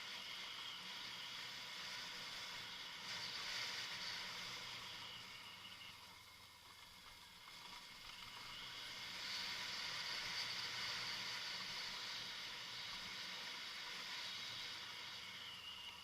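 Kawasaki Versys motorcycle engine running under a hiss of wind and tyre noise while riding off-road, growing louder twice.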